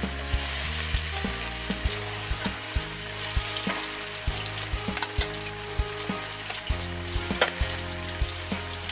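Battered chicken pieces deep-frying in hot oil in a steel kadai: a steady sizzle as more pieces are dropped in. Background music with a steady beat plays under it.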